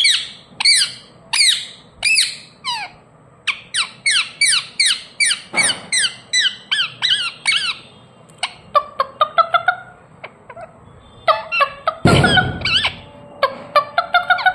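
Indian ringneck parakeet calling: a series of short, high chirps that slide downward in pitch, about two a second, then a quicker run of shorter chirps in the second half. A brief rush of noise comes about twelve seconds in.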